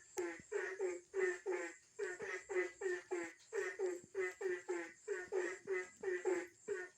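Frog calling over and over, short croaking calls at about three a second, with a steady high insect trill behind.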